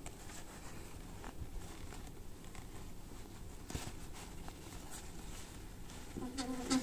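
Faint handling noise as a fabric seat cover is worked onto a stroller's metal frame: light rustling with small clicks and taps, one sharper click about halfway through. A brief low vocal sound near the end.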